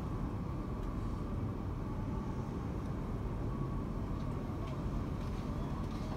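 Steady low mechanical rumble of a running escalator and the busy station hall around it, with a faint hum near the top of the rumble. A few faint footstep clicks.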